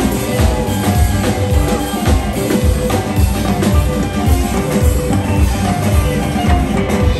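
Live band playing Congolese Afropop-rock: electric guitars over a drum kit, with a steady kick-drum beat.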